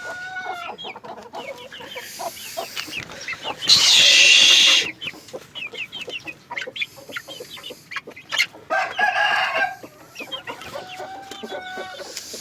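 Aseel chickens clucking and cheeping, with two louder, longer calls about four and nine seconds in that include a rooster crowing.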